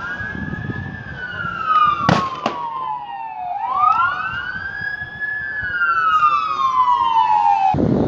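Fire engine siren wailing: a quick rise, then a slow falling glide, repeated twice before it cuts off abruptly near the end. Two sharp pops about two seconds in.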